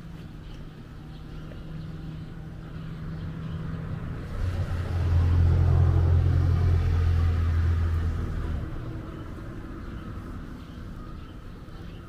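A motor vehicle passing close by on the street: its engine hum builds, becomes loud about four seconds in for several seconds, then fades away.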